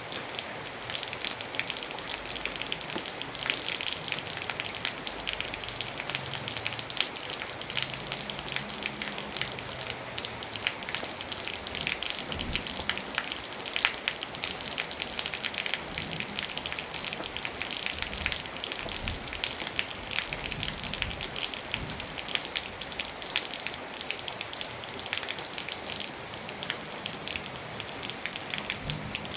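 Steady rain falling on a surface, a dense hiss with many fine crackling drop impacts.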